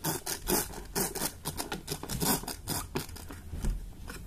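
Small plastic wind-up toy bus being wound by hand: a quick, irregular run of rasping, ratcheting strokes, several a second, which stops shortly before the end.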